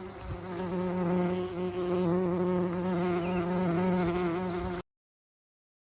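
Bee buzzing: a steady, slightly wavering hum that cuts off suddenly about five seconds in.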